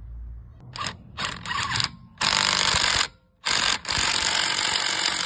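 DeWalt cordless impact wrench running lug nuts onto a wheel: a few short bursts, then two longer runs of about a second each, each stopping abruptly.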